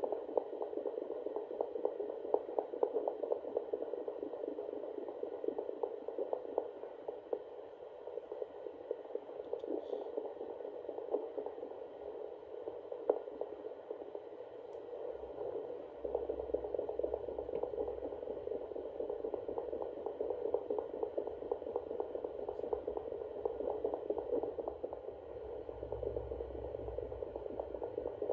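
Handheld fetal Doppler monitor playing the fast, pulsing whoosh of unborn kittens' heartbeats picked up through a pregnant cat's belly.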